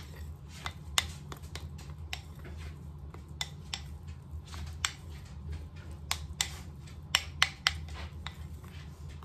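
Metal spoon stirring thick icing in a small ceramic bowl, clicking and scraping against the bowl's side in irregular sharp ticks, a few a second, as green food colouring is mixed in.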